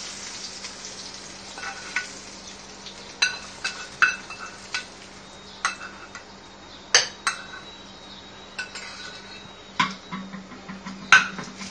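A metal spoon scraping and knocking against a small non-stick frying pan, a dozen or so irregular clinks, as hot tempering oil with mustard seeds and curry leaves is scraped out onto chutney. A faint steady low hum runs underneath.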